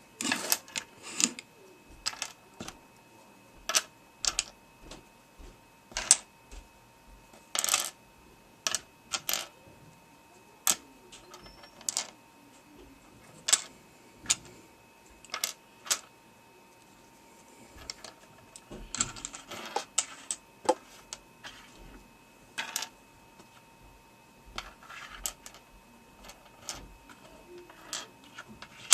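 Loose plastic pieces of a disassembled LanLan Rex Cube being sorted and set down on a hard surface: irregular sharp clicks and taps, sometimes a few in quick succession.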